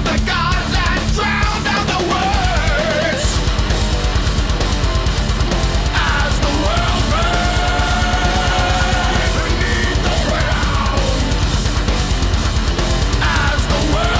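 Heavy metal music: distorted guitars over fast, even bass-drum beats that set in about three seconds in, with held melody lines above.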